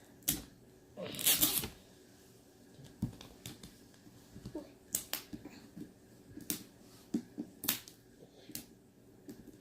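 LOL Surprise doll packaging being torn and pried open by hand. There is a tearing rustle about a second in, then scattered sharp clicks and crackles as it is worked at with some difficulty.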